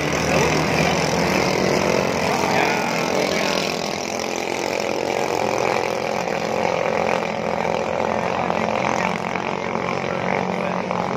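Racing boats' outboard engines running at speed on the river, a steady, loud mechanical drone with the pitch shifting gently as the boats pass.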